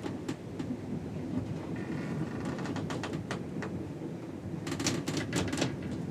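Ship below-deck ambience: a steady low rumble with scattered clicks and knocks, a short creak about two seconds in, and a quick cluster of rattling clicks about five seconds in.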